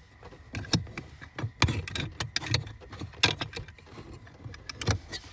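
Irregular clicks and knocks of car parts being handled and slid into place while fitting the blower motor assembly under the dash, several a second.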